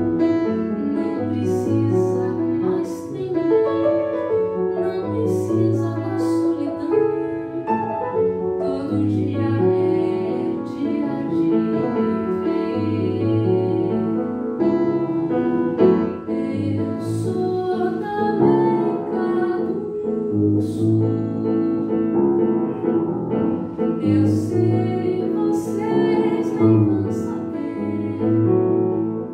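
Woman singing with an upright piano accompanying her, the piano playing full chords under the voice.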